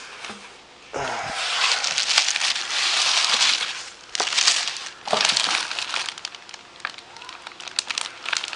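Packaging being handled and crinkled during unboxing: a long dense stretch of crinkling for about three seconds, then scattered crackles and short rustles.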